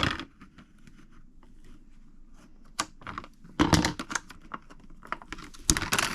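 Toy blind-pack packaging being torn open and crinkled by hand: faint crackling at first, then loud tearing rips about three and a half seconds in and again near the end.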